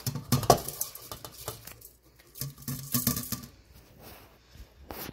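Wet washed rice tipped from a metal bowl into a stainless steel pot: the bowl scrapes and clinks against the pot as the rice slides and patters in. The clatter comes in two busy stretches, one at the start and one about two and a half seconds in, with a sharp click near the end.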